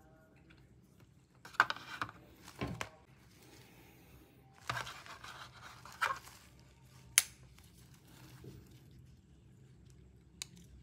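Handling noises from a small metal charger dock and an Apple Watch: several short scrapes and rustles, and a sharp click about seven seconds in.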